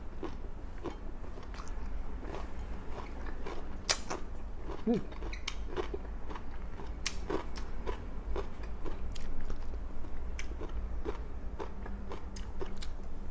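Close-miked chewing and biting of grilled milkfish, rice and a cucumber, lettuce and tomato salad, with many small irregular mouth clicks and a sharp click about four seconds in.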